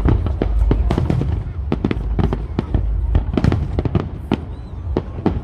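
Fireworks display: a rapid, irregular run of sharp bangs and crackles, several a second, over a low booming rumble that is heaviest in the first half and eases after about three seconds.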